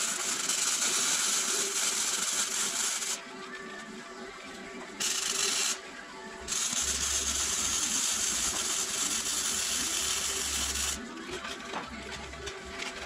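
Electric arc welding on a shipping container's steel door-frame header: the arc crackles and hisses in three runs, one of about five seconds, then a short burst, then about four and a half seconds, with a low hum under the last run. After that come a few light clicks.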